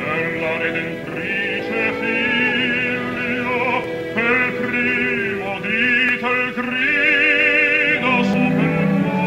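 Operatic baritone singing with a wide, regular vibrato over an opera orchestra, in an old mono radio recording.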